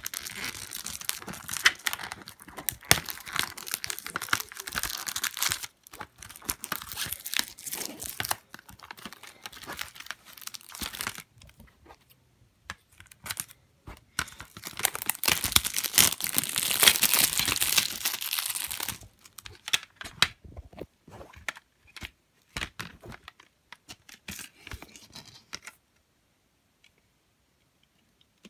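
Plastic wrapping being torn and crinkled off a DVD jewel case in two long stretches of dense crackling, the second the loudest. Scattered clicks of the plastic case being handled and opened follow.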